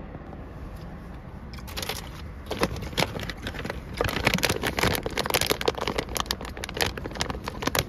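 A plastic snack packet handled and crinkled: a run of short, sharp crackles that starts about a second and a half in and gets denser midway, over a steady low hum.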